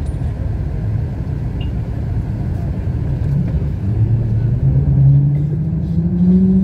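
Low engine and road rumble heard from inside a moving bus. From about halfway through, the engine note rises steadily in pitch and grows louder as the bus accelerates.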